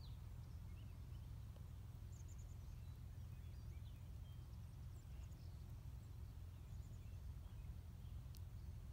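Quiet open-field ambience: a steady low rumble of wind on the microphone, with faint, scattered high bird chirps.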